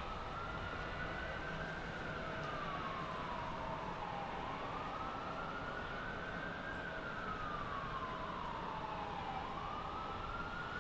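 An emergency siren wailing, its pitch climbing and sinking slowly about once every four to five seconds, over a steady low rumble of boat engines and churning water.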